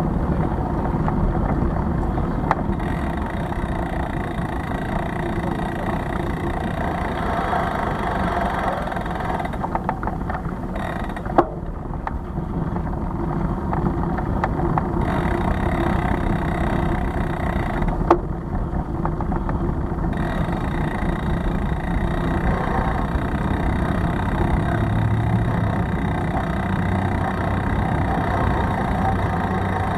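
Steady low rumble of a bicycle rolling over paving, picked up by a bike-mounted camera's microphone. Three sharp clicks break through it, about two, eleven and eighteen seconds in.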